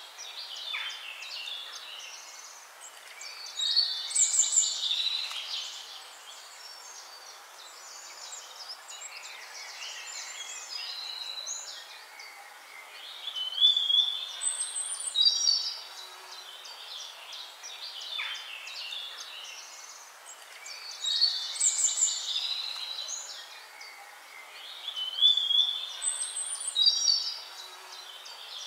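Birds chirping and singing in bursts over a steady hiss. The same bursts of song come back about 17 seconds apart, as in a looped nature recording.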